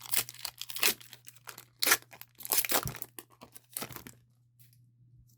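Foil wrapper of a Pokémon trading-card booster pack being torn open and crinkled: a run of sharp rustles and tears that stops about four seconds in.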